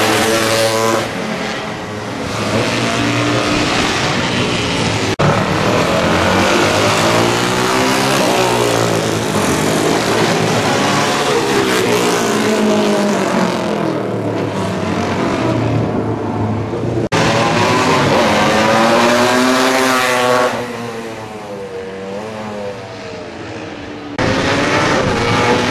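Classic racing motorcycles passing one after another at speed, each engine note rising and falling as it goes by. The sound breaks off suddenly twice and is lower for a few seconds near the end.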